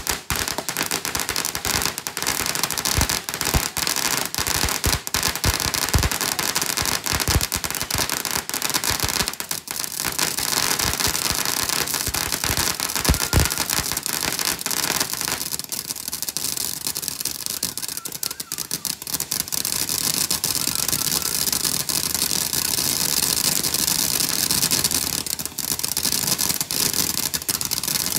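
Ground fountain firework spraying sparks: a loud, steady hiss packed with rapid crackling, with heavier pops in the first half.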